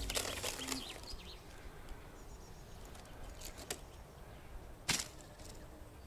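Faint outdoor background noise with a low rumble, broken by a few sharp clicks, the loudest about five seconds in. Music fades out in the first second.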